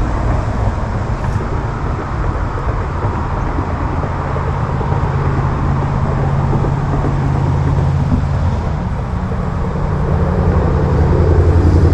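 Road traffic passing close by: a steady rumble of tyres and engines, with a deeper engine note growing louder near the end.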